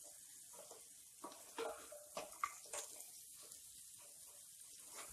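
Cluster beans being stirred in hot oil and masala in a kadai: a faint sizzle, with a spatula scraping and knocking against the pan several times, mostly between about one and three seconds in.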